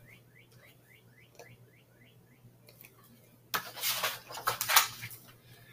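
Paper pages of a large hardcover picture book rustling as a page is turned, starting about three and a half seconds in. Before that, a faint run of short rising chirps, about five a second.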